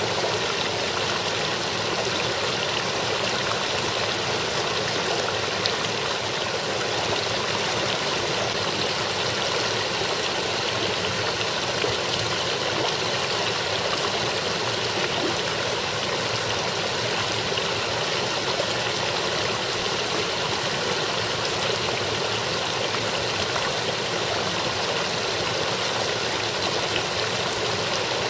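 A small, partly ice-covered brook splashing and burbling steadily over rocks.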